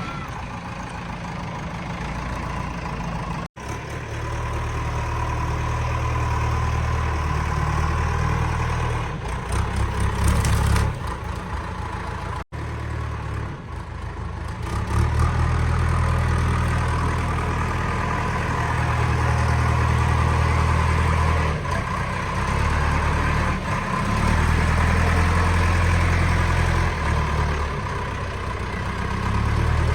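JCB 3DX backhoe loader's four-cylinder diesel engine running while the machine works, its loudness rising and falling as the load changes, with a steady whine above the engine note.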